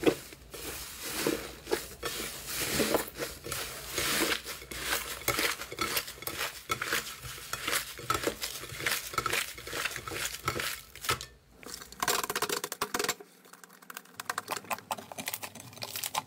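Hands kneading, tearing and squeezing a thick brown foamy slime: a dense run of small crackling pops and squishes, with a short pause about eleven seconds in.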